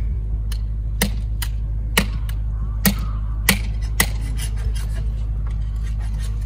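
A large knife chopping through a whole roast pig on a wooden board: a series of sharp chops, the heaviest about once a second, stopping about four seconds in.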